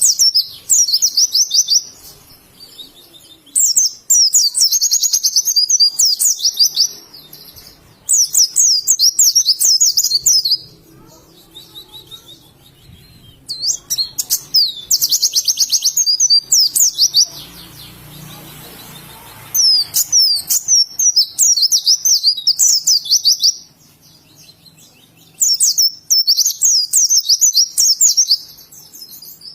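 White-eye (pleci) singing: rapid, high twittering phrases. About six phrases come in turn, each a second to several seconds long, with short pauses between them.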